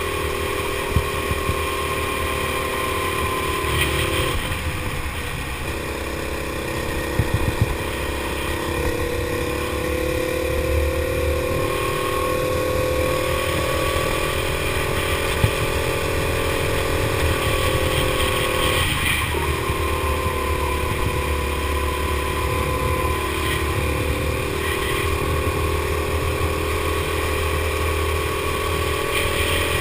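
Go-kart engine running hard, heard from on board the kart. Its note drops briefly about four seconds in and again about halfway through, as the kart lifts off for corners, then climbs steadily back up.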